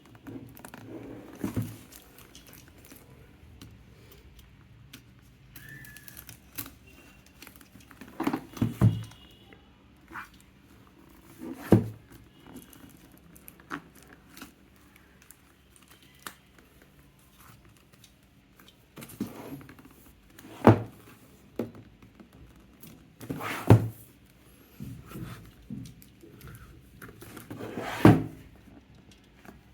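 Unboxing handling noise: a product box and its packaging being handled and opened, with scattered thunks and knocks, the loudest about six times, and light rustling and crinkling in between.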